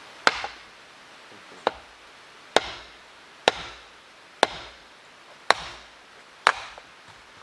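Axe splitting a piece of firewood, the wood wedged on the blade and banged down upside down: seven sharp wooden strikes, about one a second.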